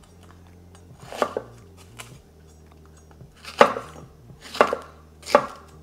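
Chef's knife slicing a serrano pepper on a wooden cutting board: four sharp strokes down onto the board, the last three about a second apart.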